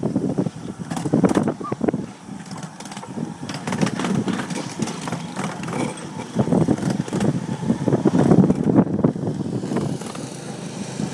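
Park trolley ride heard from aboard: a low running rumble with irregular rattles and knocks.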